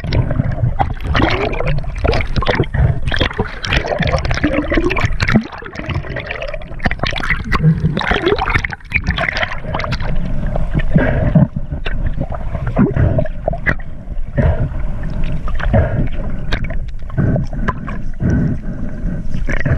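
Water gurgling and sloshing around a camera held at or just below the surface while a snorkeler swims, with many irregular crackles and splashes.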